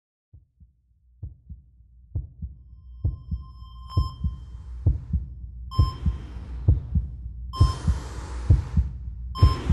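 Heartbeat sound on the soundtrack: a low double thump about once a second, fading in from silence and growing louder, with hissing swells joining about halfway through.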